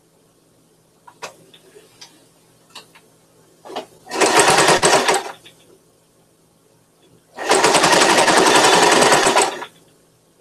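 Domestic sewing machine running and stitching in two runs, a short one of about a second and a longer one of about two seconds, with a few light clicks from handling before the first.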